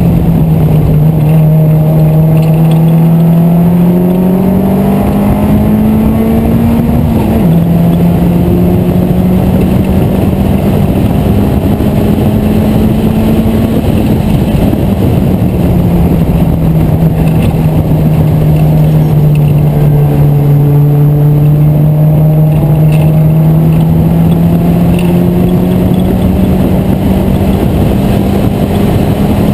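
Race car engine heard from the open cockpit under throttle, its pitch climbing and then dropping sharply at an upshift about seven seconds in. In the middle it eases off and the revs fall slowly, then climb again toward the end, over a steady rush of wind and road noise.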